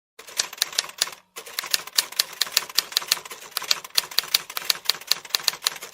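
Rapid typing on keys: a burst of clicks, a short break about a second in, then a fast, even run of about six or seven keystrokes a second that stops just before the end.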